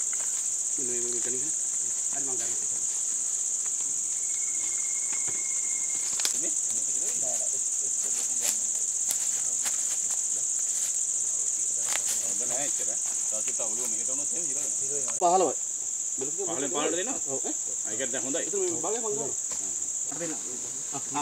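A steady, high-pitched chorus of insects droning without a break, with low voices murmuring in the background in the second half.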